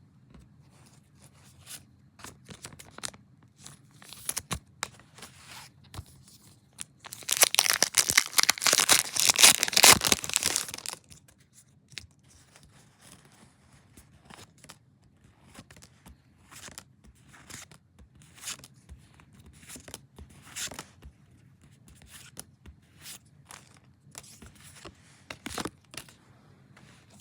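A foil Pokémon card booster pack being torn open, a loud crinkling tear lasting about four seconds near the middle. Soft rustles and clicks of handling come before and after it.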